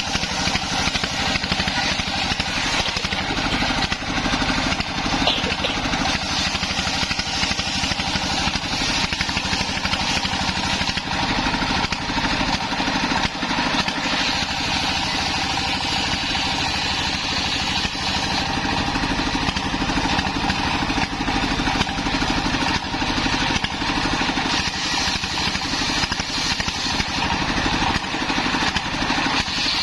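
Stationary diesel engine running steadily under load, belt-driving a homemade table circular saw that rips through waru (sea hibiscus) wood. The saw's cutting noise and the engine go on without a break.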